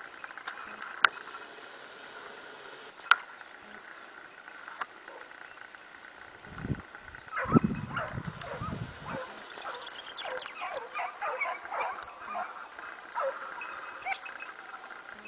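Hunting dogs giving tongue in a chase, with a burst of many short, quick yelps and bays from about seven seconds in to about twelve, and a few more near the end. Two sharp cracks come earlier, about two seconds apart.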